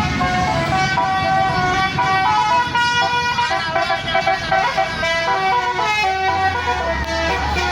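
Basuri 'telolet' multi-tone bus horn playing a melody of stepped, held notes. A low steady hum comes in about six seconds in.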